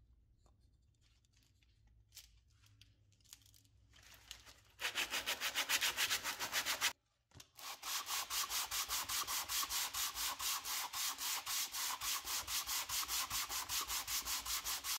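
Metal flashlight case being hand-sanded, rubbed back and forth over a sanding disc laid flat on a board. The scraping starts about five seconds in, breaks off briefly near seven seconds, then runs on in fast, even strokes, several a second.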